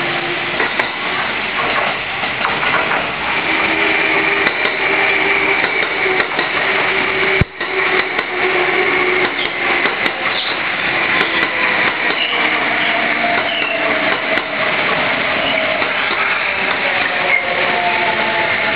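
Kintetsu ten-car electric train pulling slowly into the platform, wheels running on the rails under a steady electric motor whine whose pitch drifts as it slows. There is a brief break in the sound about seven and a half seconds in.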